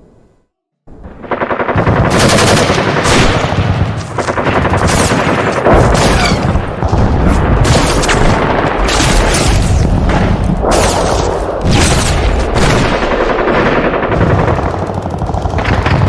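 Automatic gunfire: long, rapid bursts of machine-gun fire with heavy booming low end, starting abruptly about a second in after a brief silence.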